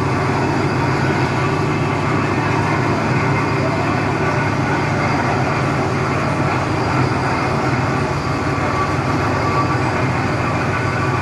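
Heavy diesel machinery at a piling site running steadily, with no hammer blows.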